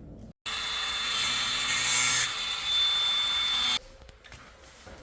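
Power drill running under load with a steady high whine, boring through the wall behind the stove for the flue pipe. It starts about half a second in and cuts off abruptly near four seconds.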